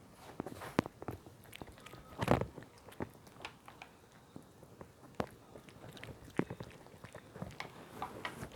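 A dog chewing and biting its food, with irregular crunches, one louder crunch about two seconds in.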